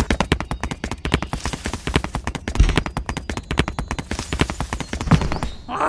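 A rapid, uneven run of sharp clicks and taps, several a second.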